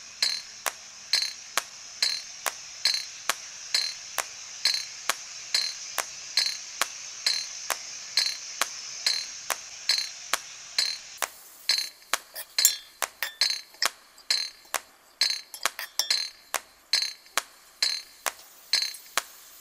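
A spoon clinking and scraping against an aluminium pot as chopped leeks are stirred in hot coconut oil. The clinks come about twice a second and then turn quicker and more irregular about halfway through, over a faint steady hiss of the leeks frying.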